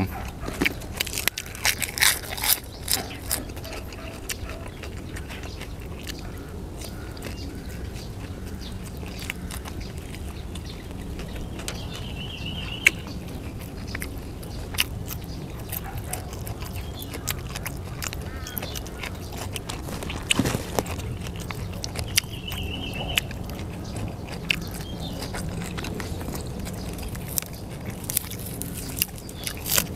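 Close-up eating sounds of grilled sausages being bitten and chewed, with wet smacks and many sharp clicks scattered throughout. A brief high chirp is heard twice, about ten seconds apart.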